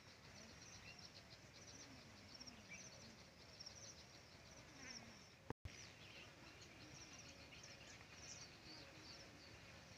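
Faint rural field ambience: quick, high chirping calls repeat throughout over a low background hiss. The sound cuts out for an instant about halfway through.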